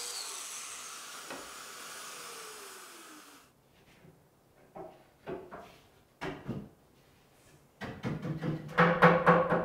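An electric plunge joiner runs down with an airy hiss, its pitch falling until it is cut off about three and a half seconds in. Then come separate wooden knocks and scrapes as dividers are slid into a wooden case, with a louder stretch of wood rubbing near the end.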